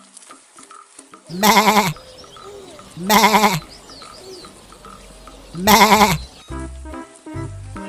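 Bleating of a goat or sheep: three loud, quavering bleats, each about half a second long and spaced a second or two apart, over background music with steady notes and a low beat.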